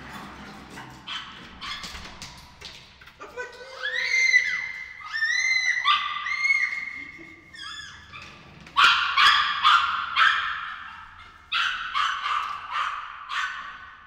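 Small dog whining in a series of high, arching cries, then yapping in a run of quick sharp barks, about two a second, from about nine seconds in.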